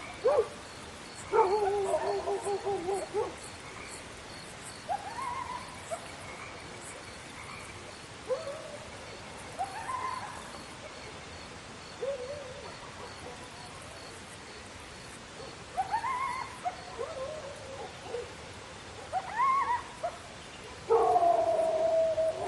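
Dogs barking and howling at night: scattered single barks that rise in pitch, with a longer wavering howl about a second in and another near the end. A faint, regular high chirping runs underneath through the first half.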